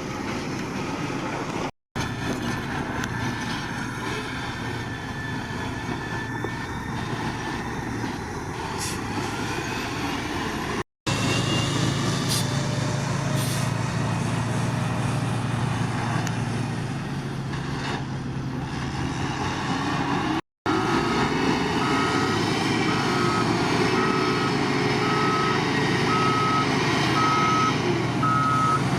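Diesel engines of heavy roadbuilding machines running steadily, broken by three brief dropouts to silence. In the last third a reversing alarm beeps steadily, about once a second, over the engine noise.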